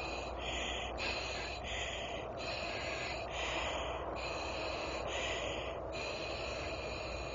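Heavy, rhythmic breathing through an oxygen mask: hissing inhales and exhales alternating evenly, about one full breath every second and a half.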